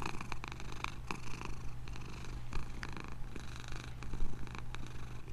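A cat purring steadily.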